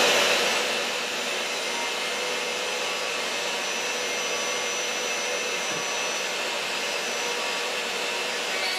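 Dust extractor running steadily, pulling air through a hose into a CNC router's brush dust shoe; a little louder in the first second, then even.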